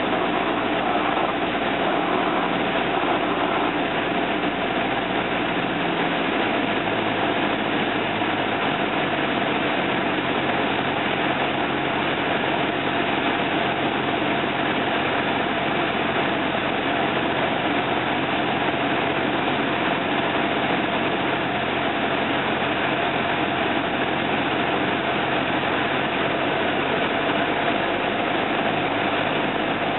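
Cessna 172 Skyhawk's piston engine and propeller droning steadily, with airflow noise, heard from inside the cabin. The engine note drops slightly about seven seconds in.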